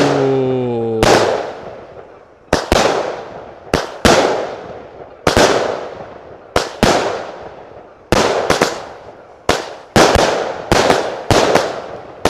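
Allevi 'Seminatore al tramonto' pressed 48-shot, 20 mm consumer firework cake firing: a string of sharp reports about a second apart, often in quick pairs, each followed by a fading tail. The shots come faster near the end.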